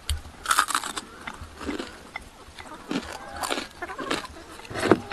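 A person biting and chewing a crisp fried piece of food: several crunches at irregular intervals, the loudest near the end.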